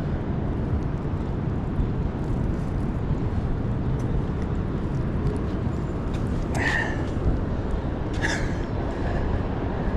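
Steady low rumble of outdoor city background noise, with no single event standing out.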